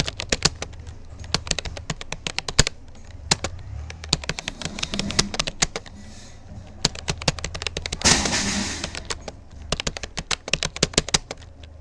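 Typing on a Rapoo computer keyboard: quick, uneven runs of key clicks with short pauses, over a low steady hum. A brief rush of noise comes about eight seconds in.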